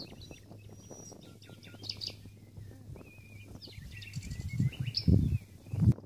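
Small songbirds chirping and trilling in short high calls over a faint steady hum. In the last second or so, a few loud low bumps of noise come in, louder than the birds.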